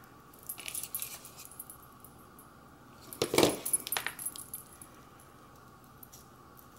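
Hands handling and pressing small craft pieces (glitter-canvas bow, paper clip, backing piece) on a cutting mat: light clicks, taps and a faint metallic jingle in two short bursts, about half a second in and again around three seconds in, the second louder.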